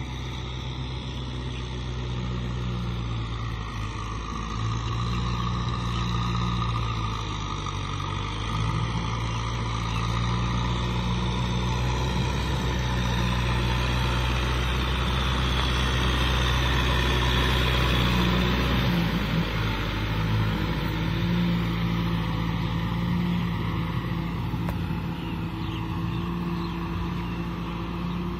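Kubota M6040 SU tractor's four-cylinder diesel engine running steadily under load as its rear rotary tiller works through flooded paddy mud. It grows louder as the tractor comes close around the middle, then eases off.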